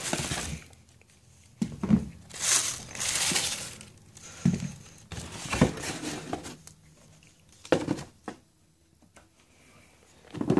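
Tissue paper rustling and crinkling as sneakers are handled out of a cardboard shoebox, with a few short knocks from the box and shoes being moved and set down.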